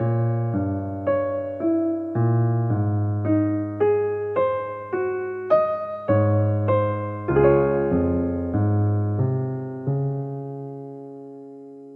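Slow, gentle electric piano music, single notes over sustained bass notes about every half second, ending on a chord that rings and fades away near the end.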